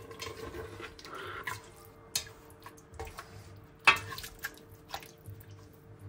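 Light clicks and knocks of a pressure cooker and kitchen utensils being handled as spices go in and the lid goes on, with one sharp click about four seconds in. A faint steady hum runs underneath.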